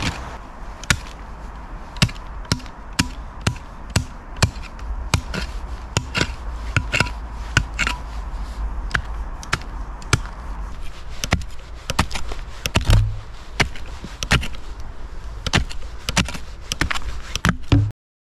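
A small folding shovel/pick chopping into rocky earth, in sharp irregular strikes about two a second, which stop abruptly near the end.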